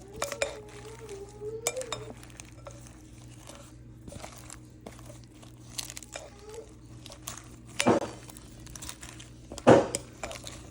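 Kitchen handling sounds: scattered small clicks, rustles and clinks of utensils and a bowl, with two louder knocks in the last few seconds. A short wavering whine is heard in the first two seconds.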